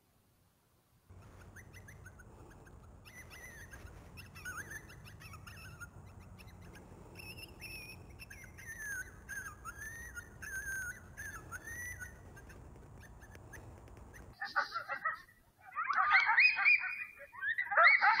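Coyote howling: long wavering high-pitched calls that glide up and down over a low steady rumble. Near the end it breaks into a much louder jumble of yips and howls.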